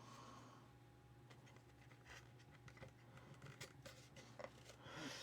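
Faint, scattered small clicks and taps of model-kit parts being handled and fitted, becoming more frequent toward the end, over quiet room tone.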